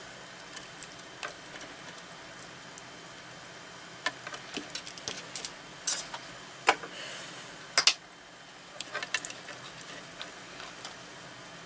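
Irregular small clicks and taps from fingers handling wire leads and a circuit board, with a few sharper clicks in the middle.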